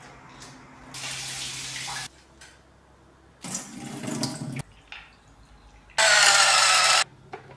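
Quick run of kitchen sounds: a brief hiss about a second in, then water pouring through a handheld pot strainer into a steel sink, then a handheld electric whisk whirring for about a second in a steel bowl of cream, the loudest sound.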